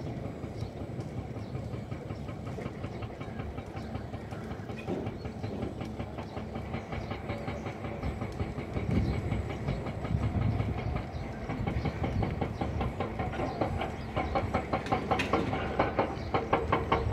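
Bush fire burning through dry brush: dense, rapid crackling and popping over a low rumble, growing louder and denser over the last few seconds.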